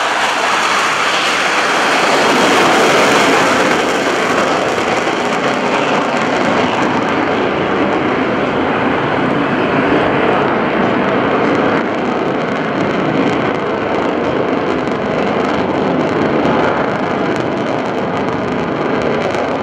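Jet engine noise from the Blue Angels' four F/A-18 Hornets flying overhead in diamond formation. It is a loud, steady rushing sound, loudest a few seconds in, then slowly growing duller as the high hiss fades.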